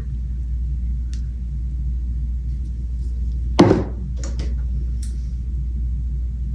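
Steady low background hum, with one sharp knock about halfway through and a few light clicks soon after it.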